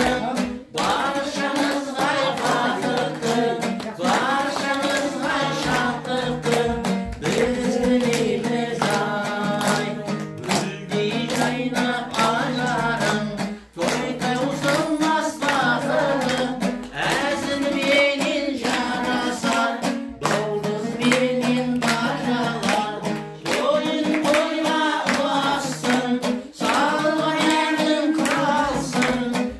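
A song: a singing voice over plucked-string accompaniment, with people clapping along to the beat.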